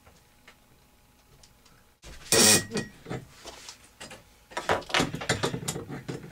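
Metal hand tools clinking and clattering at a workbench, then pliers gripping and turning a small brass elbow fitting into a freshly tapped hole in a velocity stack held in a vise. Quiet at first, with a sudden loud clatter about two seconds in and a busier run of short clinks near the end.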